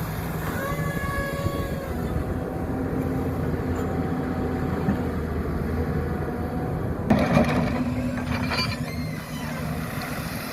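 Hyundai R220 excavator's diesel engine running steadily, with the hydraulics whining in rising, held tones as the machine works. About seven seconds in comes a short burst of loud knocks and clatter.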